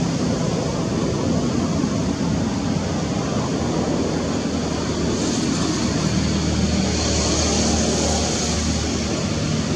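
Steady outdoor background noise: a low rumble with a hiss above it, the hiss growing a little stronger about halfway through.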